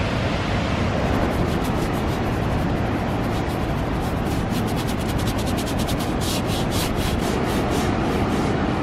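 Stiff bristle brush rubbing oil paint across the palette and onto a stretched canvas in quick, repeated scrubbing strokes, most dense about six to seven seconds in. A steady rushing background noise runs underneath.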